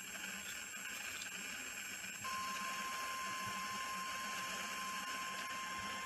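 NOAA Weather Radio 1050 Hz warning alert tone coming in about two seconds in and holding as one steady pitch over a radio hiss. It is the signal that an alert message is about to be broadcast.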